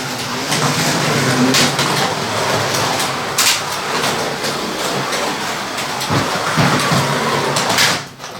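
Carrera 1/32 scale slot cars running on the track: a steady, noisy whir of small electric motors and wheels, with a few sharp clicks, that drops away near the end.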